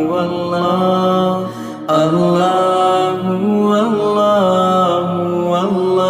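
Islamic devotional chanting (a nasheed), a voice holding long notes that slide between pitches, with a short dip and a fresh entry about two seconds in.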